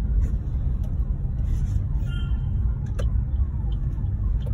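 Car engine and road noise heard from inside the cabin, a steady low rumble, with a brief high tone about two seconds in and a couple of sharp clicks.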